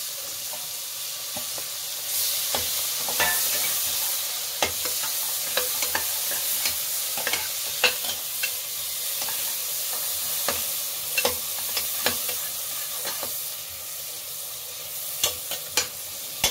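Thinly sliced onions sizzling steadily in hot oil in a pressure cooker, just added and being stirred, with a spoon scraping and clicking irregularly against the pot.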